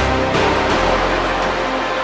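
Cinematic background music with sustained tones; the deep bass thins out about a third of the way in.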